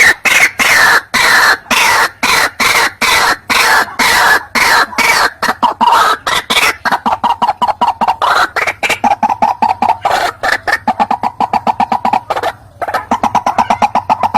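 White-breasted waterhen (ruak-ruak) call played as a hunting lure: a loud rapid series of harsh repeated notes that quickens into a faster, more even run of notes, breaks off briefly near the end and starts again. A faint steady hum runs underneath.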